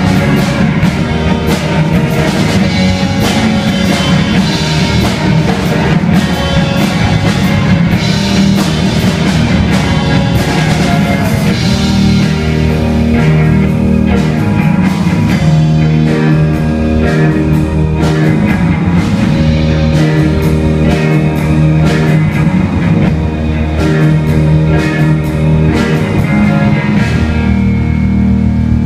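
Live rock band playing loudly: electric guitars, keyboard and drum kit.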